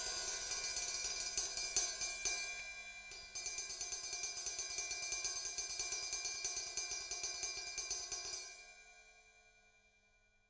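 Ride cymbal played with fast, steady repeated strokes, building a ringing wash. The playing breaks off briefly about three seconds in and resumes. It stops about eight seconds in, and the cymbal rings out and fades away.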